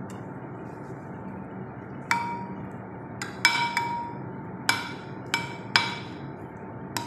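Spoon clinking against a glass baking dish while spreading cream sauce over rolls: about seven sharp taps starting about two seconds in, each with a brief ringing tone, over a steady low hiss.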